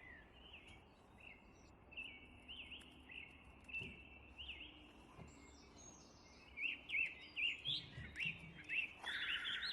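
Small songbirds chirping faintly, a series of short high chirps that come more often near the end.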